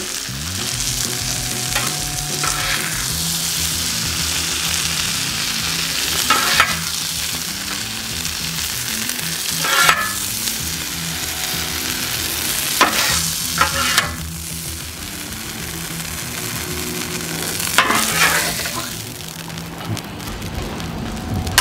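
Cheesesteak meat and onions sizzling on a Blackstone flat-top griddle, a steady hiss. Metal spatulas scrape and clatter now and then, about six times, as the filling is scooped off the griddle.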